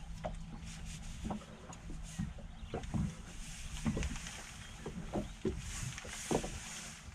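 Irregular knocks and thumps in a fishing boat, about one every second, over a faint steady low hum.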